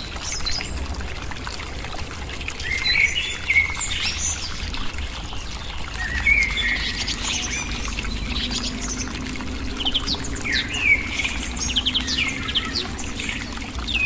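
Water from a mini water pump pouring in a thin stream into a small toy pond, over a steady low hum, with birds chirping many times throughout.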